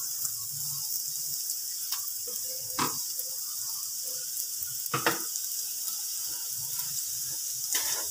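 Oil sizzling steadily in a frying pan of chana dal, white dal and peanuts, with a wooden spatula knocking and scraping the pan a few times as the mix is stirred.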